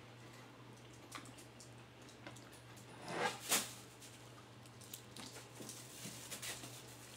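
Close-up eating sounds: chewing with small wet mouth clicks, and about three seconds in two louder noisy bites into a piece of chicken held in the fingers. A steady low hum runs underneath.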